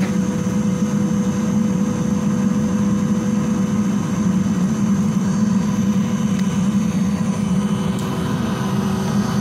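Electric centrifugal blower running steadily, a constant hum with a thin whine over it, forcing air into a wood-fired furnace made from an old LPG bottle so that the fire burns hard, throwing out sparks.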